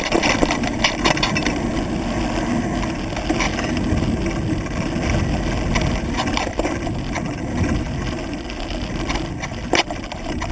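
Mountain bike rolling along a forest trail, heard from a camera mounted on the bike or rider: steady wind and tyre rumble with scattered knocks and rattles from the bike over bumps.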